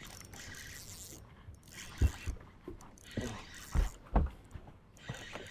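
A steady hiss with four sharp, heavy thumps: two about two seconds in and two near four seconds in.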